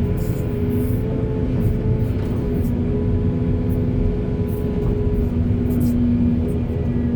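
Heavy diesel engine of an excavator running steadily under load, a deep rumble with a constant whine over it.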